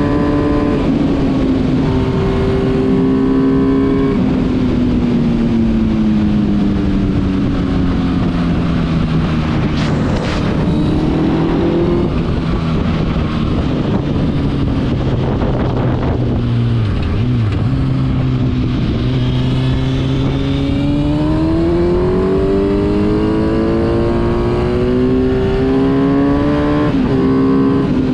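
Kawasaki Z1000 inline-four engine in a converted Yamaha Raptor 700 quad, heard on board while riding. Engine speed falls gradually as the quad slows over the first half, then rises steadily as it accelerates, with a brief drop shortly before the end. Wind rushes over the microphone.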